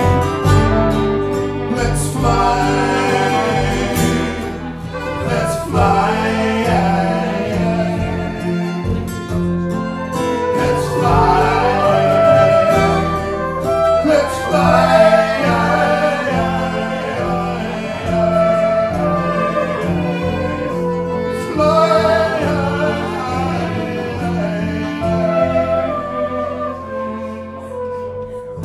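Live acoustic band playing an instrumental passage on acoustic guitar, double bass, flugelhorn and violin.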